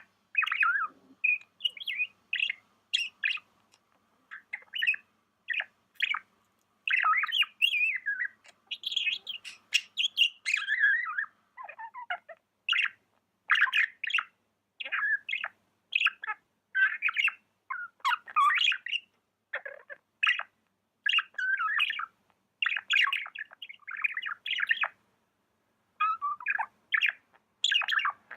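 Pet budgerigar chirping in a rapid, almost unbroken run of short chirps and squawky notes, with a brief pause near the end.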